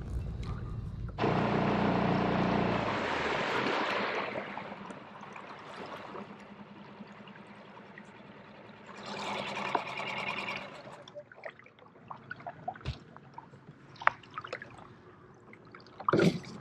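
Water trickling and splashing, starting suddenly about a second in, loudest for the next few seconds and then fading, with another short burst later and a few sharp clicks near the end.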